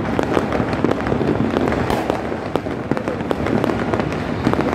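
Many fireworks and firecrackers going off together: a dense, continuous crackle of sharp pops with no let-up.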